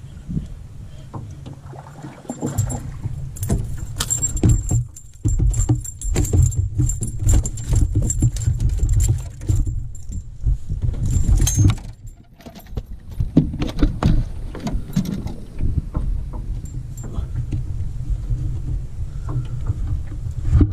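Fishing tackle jangling and clicking as a hooked chain pickerel is reeled in and landed by hand, over a steady low rumble. The rattles come thick in the first half and thin out after about twelve seconds.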